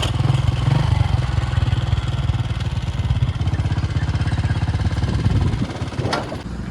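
A small engine running with a rapid low throb, dropping away about six seconds in, followed by one brief sharp sound.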